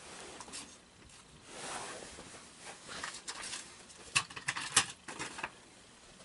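Rustling, then a quick run of sharp clicks and clatters about four to five seconds in, as small hard objects are handled and picked through on a desk.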